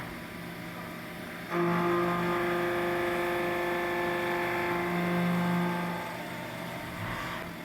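Haas VF4 CNC vertical mill running a facing pass on a metal part. About a second and a half in, the cutter bites and the sound gets louder with a steady singing tone, then eases off around six seconds.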